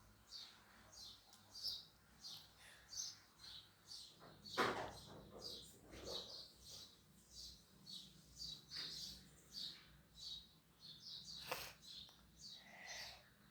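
A small bird chirping over and over, a few short high chirps a second, with a louder knock about four and a half seconds in and another near the end.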